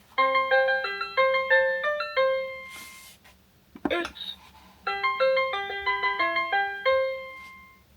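Winfun Animal Friends Bus toy playing two short electronic melodies of quick beeping notes through its small speaker. Between them, near the middle, comes a brief noisy burst and a short sound from the toy.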